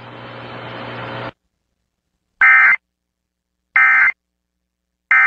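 Steady broadcast hiss with a low hum that cuts off just over a second in, followed by three short, loud bursts of Emergency Alert System end-of-message data tones (the SAME 'NNNN' code), evenly spaced about a second and a half apart, marking the end of the alert.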